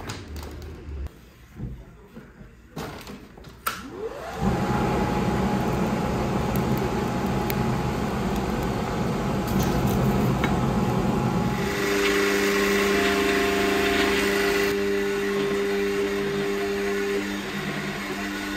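A few light clicks and knocks, then about four seconds in an electric motor winds up with a rising whine and settles into a steady hum, which fits the forge's air blower. About twelve seconds in the sound changes to a different steady machine drone with a hiss over it, which fits the hydraulic forging press's pump running as it squeezes the hot billet.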